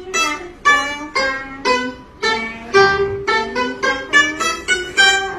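Pipa being plucked: a slow melody of single notes, roughly two a second, each ringing and dying away.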